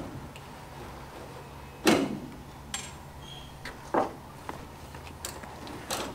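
Knocks and thumps of aircraft parts being handled against the floor and walls of a semi-trailer: a loud one about two seconds in, another about four seconds in, and a few lighter taps after, over a steady low hum.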